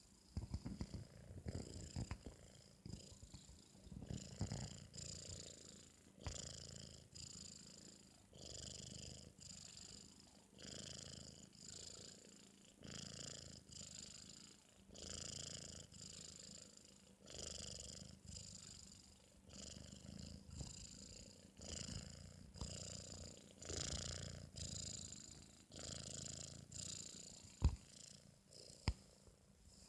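A four-month-old British Shorthair kitten snoring in its sleep, about one breath a second, each breath carrying a high whistle. Two sharp clicks near the end.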